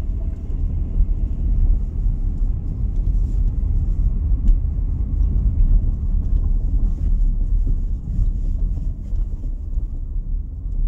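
Steady low road rumble heard from inside the cabin of a moving 2009 Honda CR-V LX, with scattered light ticks and knocks. The car has a rear-end rattle and knock that new struts, strut mounts, bushings, sway-bar links and a differential mount have not cured.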